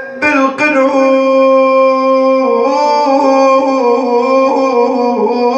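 A man's voice singing a slow, mournful Arabic lament (an Iraqi na'i), holding long drawn-out notes that step down in pitch about halfway through and again near the end.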